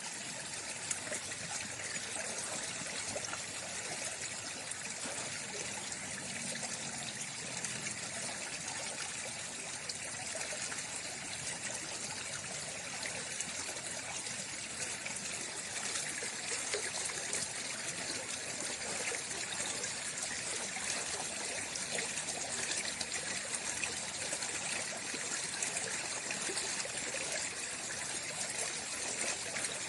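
Waterfall: a steady splashing rush of falling water, mostly high and hissy with little low rumble, unchanging throughout.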